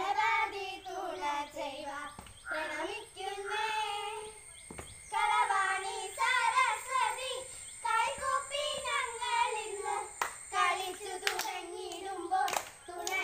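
Girls singing a Kerala clapping-dance song together while clapping their hands in time, the claps sharpest and most frequent near the end.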